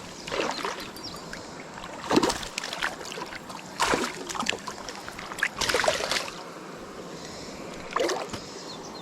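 Water splashing in a series of irregular bursts, about five over several seconds: a hooked bass thrashing at the surface of a creek as it is played in and landed.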